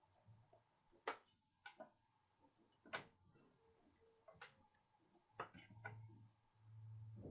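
Near silence with a few faint, irregular clicks or taps, and a brief low hum near the end.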